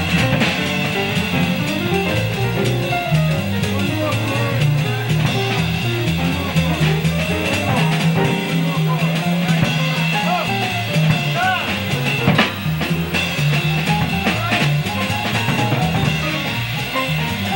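Jazz piano solo on a blues in B-flat, with bass playing a line of evenly paced notes and drums keeping time on cymbals underneath.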